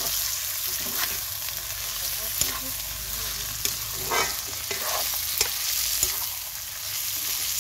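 Duck meat sizzling as it dry-fries in a black wok, stirred with a metal ladle that scrapes and clicks against the pan now and then.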